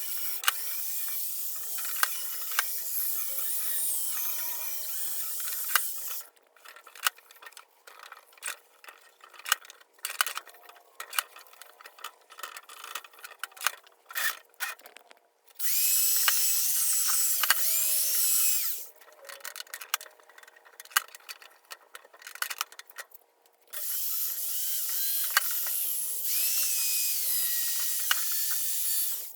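A power drill fitted with a polishing pad runs in three steady bursts of several seconds, buffing the metal hardware of an old steel toolbox. Between the bursts come small clicks and knocks of handling.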